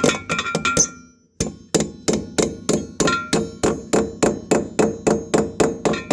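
Hammer driving a dowel anchor into a drilled hole in the wall: a few blows, a short pause about a second in, then a steady run of about three blows a second, each with a metallic ring.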